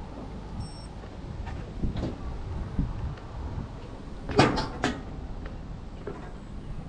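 Knocks and clanks from a steel-framed gangway with wooden decking as it is crossed, with a quick cluster of sharp clanks about four and a half seconds in, over a low steady rumble.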